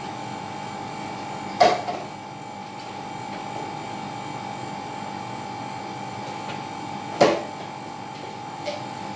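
Two sharp knocks, about a second and a half in and again about seven seconds in, as spice jars and containers are picked up and set down on a kitchen counter, over a steady high-pitched hum.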